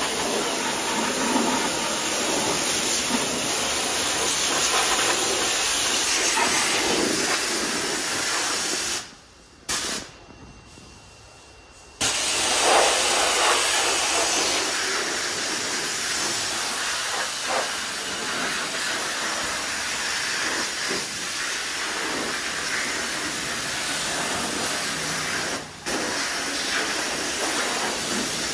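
Pressure washer lance spraying a jet of water onto a van's bonnet and engine bay, a steady loud hiss. The spray stops for about three seconds about nine seconds in and breaks briefly again near the end.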